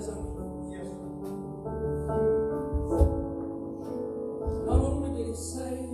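Soft background music: sustained chords with two deep low hits, about 3 and 4.8 seconds in.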